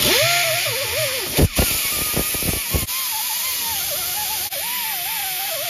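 Pneumatic right-angle grinder with an abrasive surface-conditioning disc running at speed: a hissing air whine whose pitch wavers as the disc is pressed against an aluminum timing cover to strip old gasket material. A few short knocks come between about one and a half and three seconds in.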